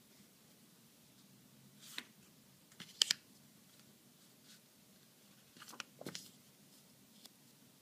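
Paper cards being handled on a stack: a few short rustles and slaps as cards are lifted off and laid down, the loudest about three seconds in and another cluster around six seconds.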